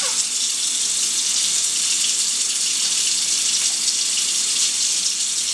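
Kitchen faucet running steadily, its stream of water splashing into the sink basin.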